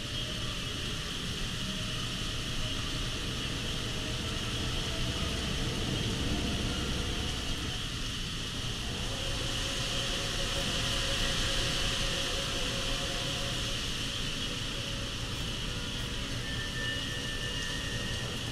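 Hurricane wind and heavy rain making a steady roar of rushing noise, swelling with stronger gusts about a third of the way in and again past the middle.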